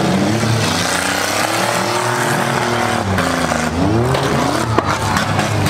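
Several six-cylinder demolition derby car engines revving together, their pitches rising and falling as the cars accelerate and collide, with one sharp bang of a hit near the end.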